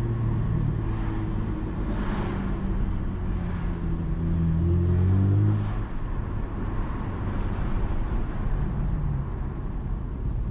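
Chevrolet Camaro engine running under way. About four seconds in it pulls harder, rising in pitch and loudness, then drops off suddenly just before six seconds and settles back to a steady cruise.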